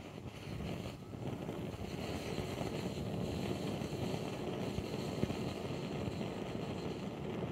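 Companion No 42 one-pint brass kerosene blowtorch burning with a rushing, uneven rumble that grows louder in the first second. Yellow flames are flaring around the burner head rather than a clean blue jet, a sign the burner is still warming up.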